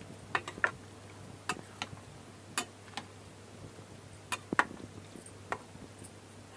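Metal ladle stirring thick rice-and-lentil bisi bele bath in a steel pot, clinking against the pot in a string of irregular sharp clicks.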